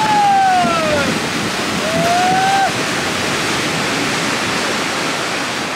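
A wooden fishing boat sliding down the slipway into the water, its hull throwing up a rushing splash and wave. Two long drawn-out calls from people ring out over it, one falling in pitch near the start and one rising about two seconds in.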